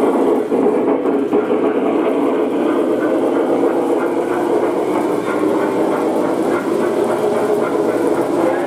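O gauge three-rail model train running past, a streamlined steam locomotive hauling stainless-steel passenger cars: a steady rumble of wheels on the track.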